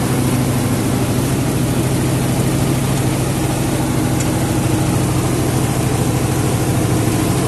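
Small river boat's engine running steadily, a low even drone under a hiss of wind and water.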